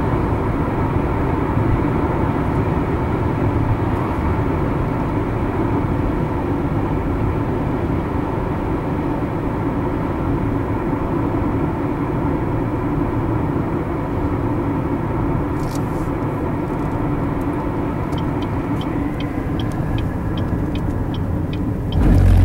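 Steady road and tyre noise inside a moving car's cabin. In the last several seconds it eases a little, and a quick, evenly spaced light ticking comes in. There is a low thump near the end.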